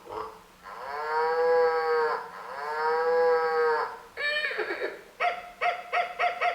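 A cow mooing twice, two long calls that rise and fall in pitch. They are followed by a short falling sound and then a quick run of repeated pitched notes near the end.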